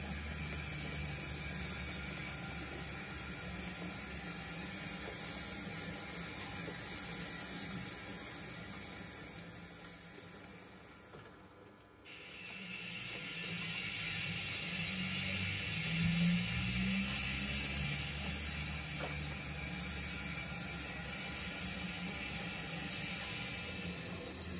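0 gauge model train running on track: a steady mechanical clatter of wagon wheels over the rails with a low motor hum. It fades away about halfway through, then returns.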